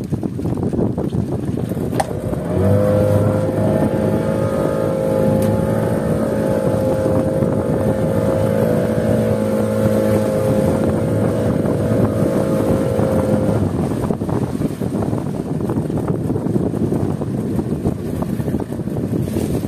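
Wind rumbling on the microphone aboard a small boat at sea, with a boat engine's steady hum. The hum comes in a couple of seconds in and stops about two-thirds of the way through.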